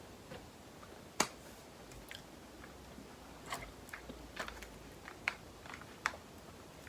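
Scattered short clicks and taps at close range, about half a dozen, the sharpest about a second in.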